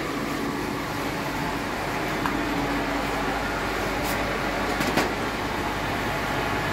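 Steady hum and rush of aquarium filtration equipment, pumps and moving water, running on throughout, with a couple of sharp knocks about four and five seconds in.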